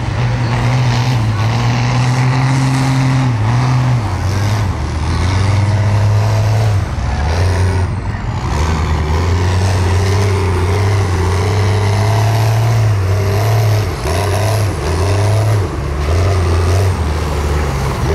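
Mega truck engine running under heavy throttle through a mud pit. Its pitch drops about a third of the way in and rises and falls several times as the revs change.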